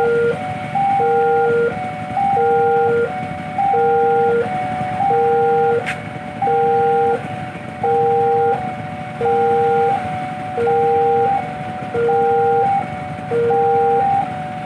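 Indonesian railway level-crossing warning alarm sounding: a loud electronic chime repeating high and low tones with a brief middle step between them, about one cycle every second and a half, signalling that a train is approaching and the barriers are closing. A steady low rumble sits beneath it.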